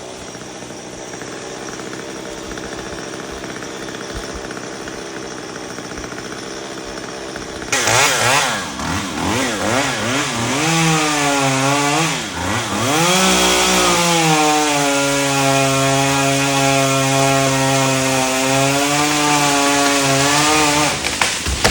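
Chainsaw idling, then opened up about eight seconds in: its pitch rises and falls in quick blips, then holds steady at high speed for about seven seconds, as it cuts through wood, and drops back near the end.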